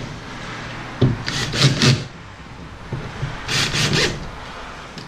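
Cordless drill-driver tightening cleat bolts into a plastic boat hull's molded threaded inserts, in two short bursts of ratcheting clicks, about a second in and again near the four-second mark. The clicking is the drill's clutch slipping at a low torque setting as each bolt comes tight.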